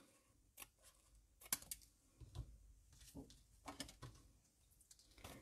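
Faint snips of scissors trimming the overhanging end of a strip of thick copper metallic paper, heard as a handful of short, sharp clicks spread over several seconds.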